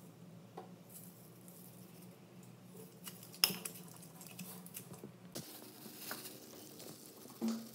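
Steel pestle pounding and scraping in a stainless steel mortar bowl: soft taps and grinding, with one sharp metallic clink about three and a half seconds in. A short dull knock comes near the end.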